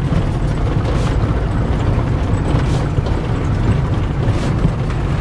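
Steady low rumble of a car's engine and tyres, heard from inside the cabin while the car is moving.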